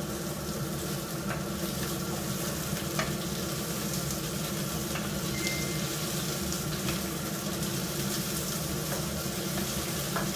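Garlic, mushrooms and carrots sizzling in olive oil in a frying pan on a gas burner, stirred with a wooden spatula that taps the pan now and then.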